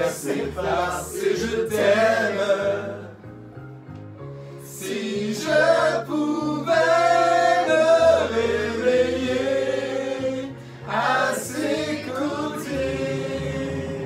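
A group of amateur voices singing a French pop song together, with drawn-out sung notes over a stepping bass accompaniment; the singing swells loudest in the middle.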